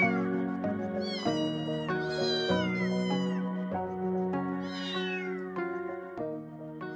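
Grey-and-white cat meowing four times, high-pitched meows that each fall in pitch, over background music of steady held notes.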